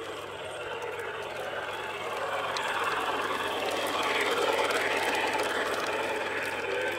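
LGB garden-scale model locomotives, a 2-4-0 and an 0-4-0 running double-headed with a freight train: a steady running noise of motors and wheels on the track that grows louder about halfway through as the train passes close.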